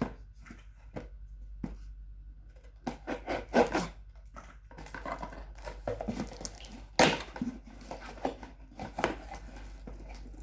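Rustling, scraping and clicking as a new smartphone and its plastic packaging are handled, with a few sharper knocks, the loudest about three and a half seconds and seven seconds in.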